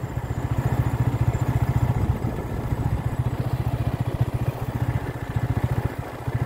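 Motorcycle engine running steadily under way, its firing pulses fast and even, easing off briefly near the end.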